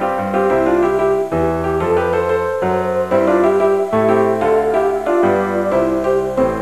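Background piano music: a melody over lower held notes, with the notes changing about twice a second.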